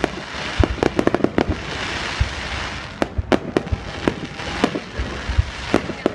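Fireworks display: a rapid, irregular string of sharp bangs and cracks from bursting shells, with a thicker crackling hiss about two seconds in.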